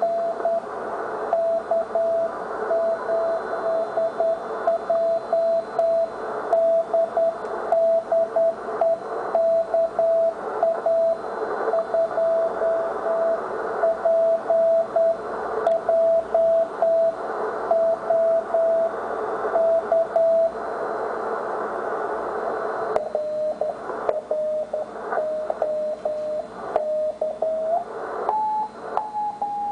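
Morse code (CW) signals on the 80-metre band from a Ten-Tec T1380 QRP transceiver: a single keyed tone beeps out dots and dashes over steady band hiss. After a short gap, a lower-pitched signal takes over about two-thirds of the way through, and a higher-pitched one comes in near the end as other stations are tuned in.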